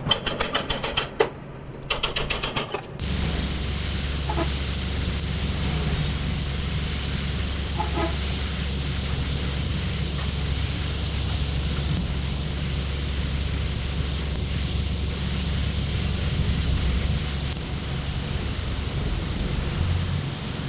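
A rapid mechanical rattle in two short spells over the first three seconds, then a steady hiss over a low hum from workshop machinery.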